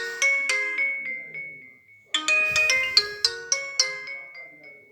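Alcatel OT-3026X mobile phone ringtone: a short melody of struck, quickly decaying notes. The phrase ends on a held high note about two seconds in, then repeats and fades out near the end.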